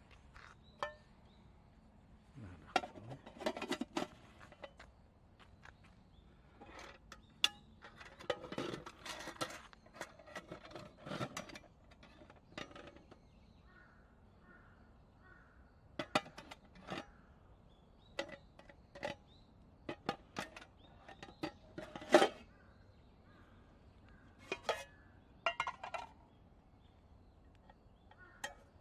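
Aluminium Type 2 army mess kit being assembled and handled: its tins, lid and wire bail handle clink and knock against each other in a scatter of short metallic clatters, with quiet gaps between.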